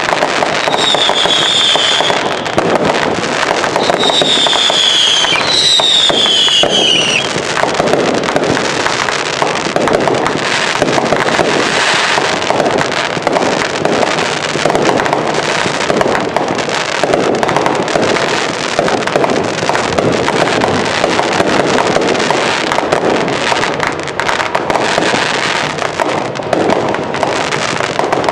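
Fireworks going off continuously in a dense barrage of bangs and crackling. In the first seven seconds three high whistles rise over it, the last one falling in pitch.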